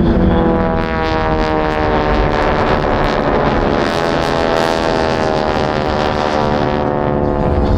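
North American SNJ warbirds' Pratt & Whitney R-985 radial engines droning as they pass overhead, a steady multi-toned drone that slowly shifts in pitch.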